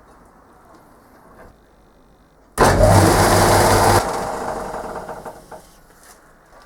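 A workshop power tool's electric motor switched on suddenly with a loud, steady hum, run for about a second and a half, then switched off and left to wind down, fading over about two seconds.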